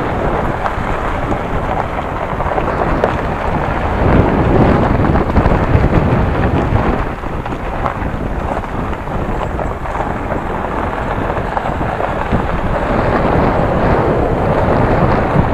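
Waterfall's water pouring and crashing into its pool, a loud steady rush with a heavy low rumble. It swells about four seconds in and eases a few seconds later.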